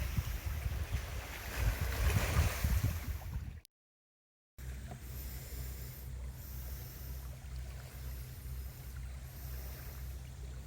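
Wind buffeting the microphone over sea surf, gusting for a few seconds. It cuts off abruptly into about a second of silence, after which a quieter, steady low rumble continues.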